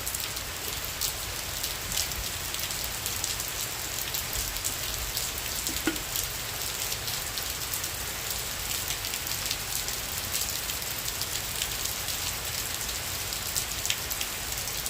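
Steady heavy rain from a tropical storm, a constant hiss with many individual drops striking close by.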